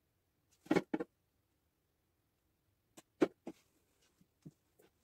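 Handling noise from small plastic craft items on a wooden worktable. Two sharp knocks come about a second in and three clicks about three seconds in, the middle click the loudest, followed by a few faint ticks.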